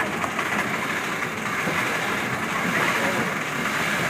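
Steam locomotive and train running, a steady noisy sound without clear beats.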